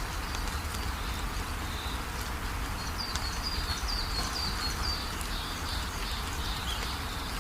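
Small birds chirping: short, high, falling chirps, with a run of about two a second in the middle, over a steady low rumble.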